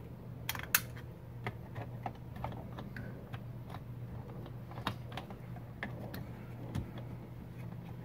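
Irregular plastic clicks and taps from the centre-console ashtray trim being handled and pressed back into place, the loudest two close together about half a second in, over a steady low hum.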